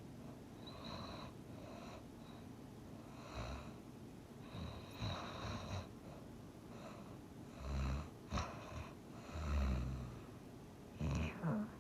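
A person snoring in sleep: irregular short, low snores and snorts every second or two over breathing, louder in the second half.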